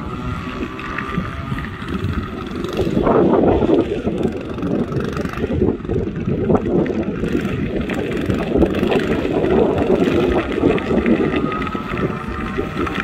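Small gas engine of a motorized drift trike running and changing pitch as the trike circles and drifts, partly buried under heavy wind noise on the microphone.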